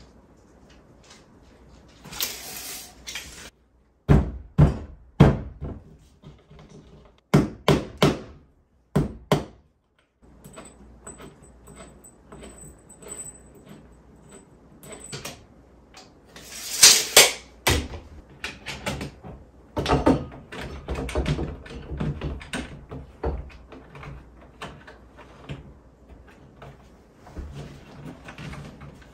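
Hand work fitting a wall light fixture and hanging a framed mirror: a run of sharp knocks and thuds, two short hissing rasps, and scattered clicks and rattles of hardware being handled.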